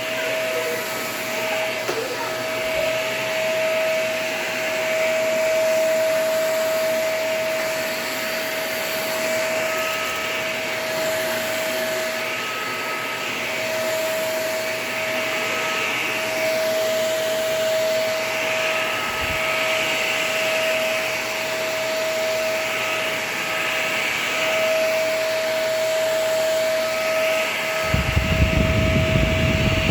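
Vacuum cleaner running steadily with a high motor whine, pushed back and forth over an area rug; its hiss swells every two to three seconds with each stroke. Near the end there is a short burst of low rumbling.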